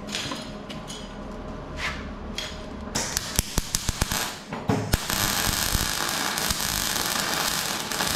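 Electric arc welding on the steel of a Land Rover dumb iron. About three seconds in there is a run of short, sharp crackling bursts, then from about five seconds on a steady crackle and hiss. The weld spits as it burns through primer left on the metal, which the welder calls terrible.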